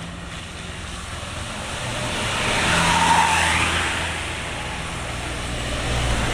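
A motor vehicle passing close by on the road: engine and tyre noise swell to a peak about three seconds in and fade away, and another vehicle's low engine rumble builds near the end.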